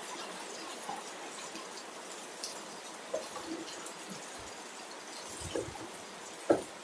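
A few scattered light clicks and taps over a steady hiss, the sharpest one about six and a half seconds in: plastic parts being handled as a scooter's body cover is fitted back on.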